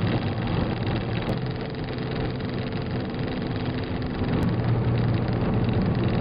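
Steady engine and tyre noise heard inside the cabin of a car cruising on a freeway, with a low drone throughout.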